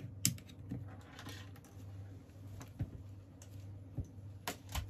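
Low steady electrical hum with scattered light clicks and taps, the sharpest about a quarter second in and a pair close together near the end.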